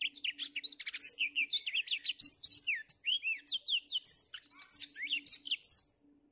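Black-throated canary singing: a fast, unbroken stream of high chirps, quick slurs and trills that stops just before the end.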